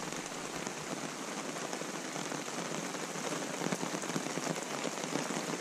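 Rain falling steadily, with many separate drops ticking.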